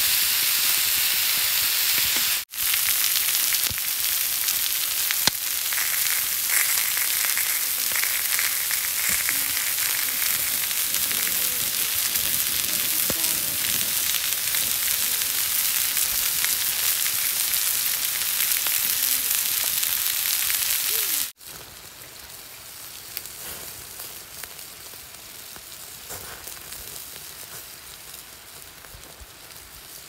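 Food sizzling as it cooks: a steady, dense hiss. It cuts off abruptly about two and a half seconds in and again after about twenty seconds, and is quieter after the second break.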